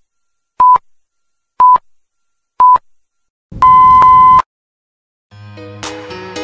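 Film-leader countdown beeps: a short steady beep once a second, three times, then a longer beep mixed with static hiss about three and a half seconds in. Music starts near the end.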